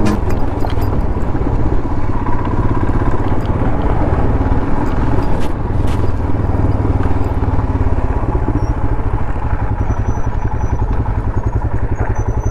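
Royal Enfield Himalayan's single-cylinder engine running steadily, with an even low pulsing beat.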